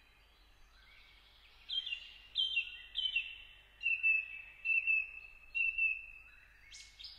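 A bird calling: a run of about seven or eight short, clear notes about half a second apart, beginning about two seconds in. The first few slide down in pitch and the rest hold one pitch, over a faint steady background hiss.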